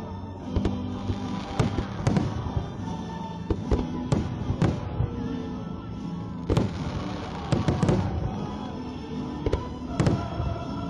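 Aerial fireworks bursting: a string of sharp bangs at uneven intervals, some single and some in quick clusters, with music playing along underneath.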